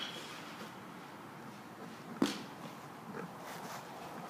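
Quiet pause in a batting cage: the ringing of a bat-on-ball hit dies away in the first moment, and one faint knock comes about two seconds in.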